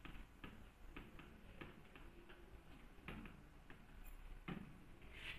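Stylus tapping and scraping on a touchscreen during handwriting: faint, irregularly spaced clicks, a dozen or so, with two slightly heavier knocks past the middle.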